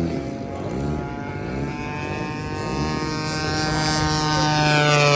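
Gasoline engines of large radio-controlled model warplanes flying. One grows louder toward the end and passes by with a falling pitch.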